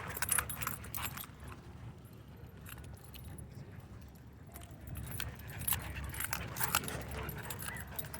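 Light metallic jingling and clinking that comes in scattered clusters, busiest in the first second and again in the second half, over a steady low rumble.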